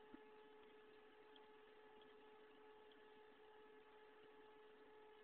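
Faint, steady hum from a home-built CNC machine's stepper motors and drivers running, with one small click just after the start.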